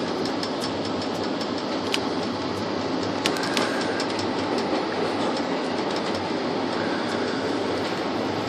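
Express passenger train running through a long tunnel: a steady rumble of wheels on the rails, with sharp clicks of the wheels over rail joints and a quick run of clicks about three seconds in.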